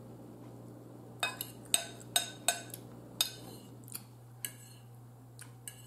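Metal fork clinking and tapping against a ceramic bowl: about ten short, light clicks, spread irregularly from about a second in, over a faint steady hum.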